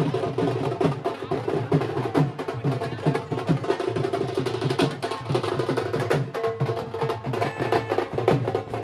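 Wedding-procession music: fast, dense drumming with a held melody line over it.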